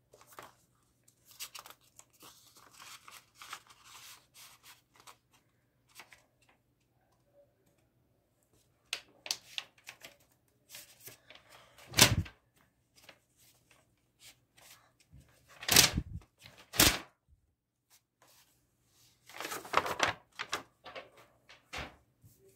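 Sheets of A4 paper handled and slid over a tabletop, with faint scattered rustles and scrapes. Three loud knocks come about halfway through and twice more a few seconds later.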